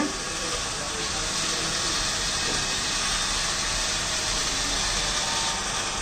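Small DC gear motors of a hobby agriculture robot running together: the wheel drive motors with the plough and seed-dropping motors switched on, giving a steady, even whir with no changes.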